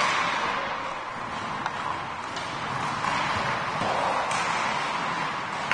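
Ice hockey game sound in a rink: a steady wash of crowd and play noise, with a few faint knocks of sticks or puck.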